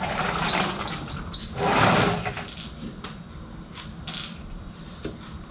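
Clatter from a neighbour's front entrance: a few sharp knocks and rattles, with a louder rush of noise lasting under a second about two seconds in.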